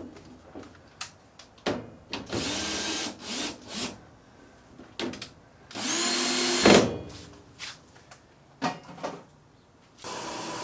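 Cordless drill/driver running in several short bursts, its motor whining up and down as it drives screws back in, with clicks and knocks of handling in between. A steady hum starts near the end.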